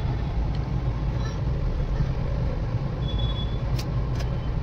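Mahindra Bolero driving in traffic, heard from inside the cabin as a steady engine drone and road noise. Two short clicks come near the end.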